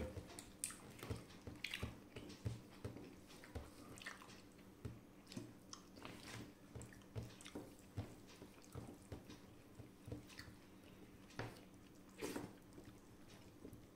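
Quiet eating by hand: fingers mixing rice and dal on a steel plate, and soft chewing and lip smacks, heard as scattered small clicks, a few a little louder near the end.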